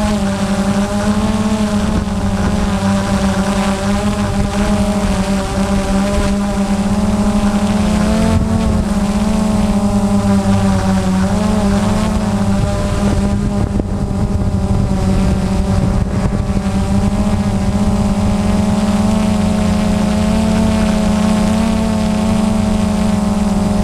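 Multirotor drone's motors and propellers buzzing loudly at a steady pitch, heard through its own onboard camera, the pitch wavering slightly as the motors adjust to hold the drone in the air.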